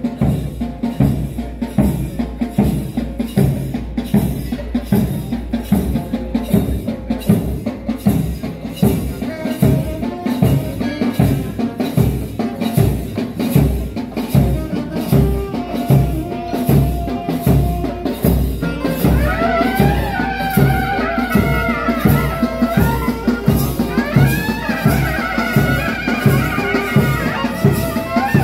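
Traditional Indian temple music from a small procession band: drums beat a steady rhythm of about two strokes a second throughout. About two-thirds of the way in, a wind instrument joins with a wavering, gliding melody.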